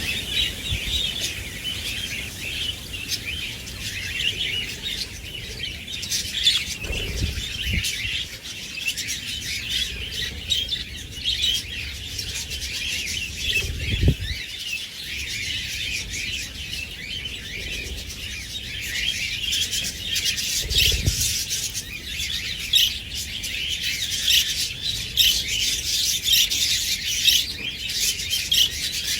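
A flock of pet budgies and lovebirds chirping and chattering constantly, with a few dull low thumps now and then.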